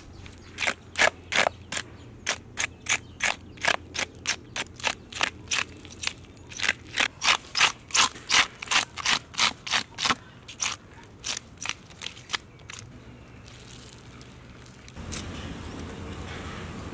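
Hand-held fish scaler scraping the scales off a large fish in quick, even strokes, about two or three a second. The strokes thin out and stop about twelve seconds in, leaving only steady outdoor background noise.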